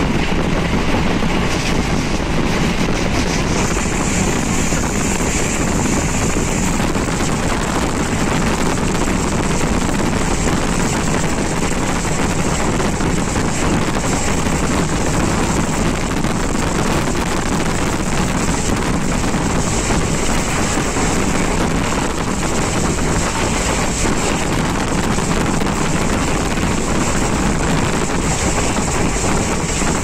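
Steady rumble and rushing wind of a moving vehicle at speed, loud and unbroken.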